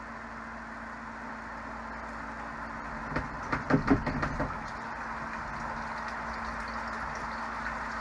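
Laundry Alternative Mega spin dryer's motor and drum spinning with a steady hum. About three seconds in there is a brief loud burst as water begins gushing from the drain spout into a glass bowl, then the water keeps pouring and splashing steadily under the hum.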